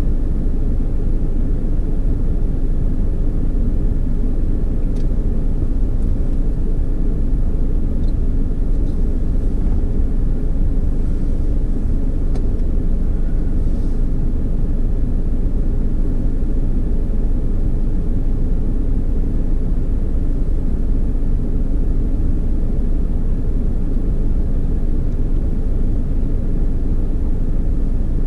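Steady low rumble of a vehicle going through an automatic car wash, with a few faint ticks in the first half.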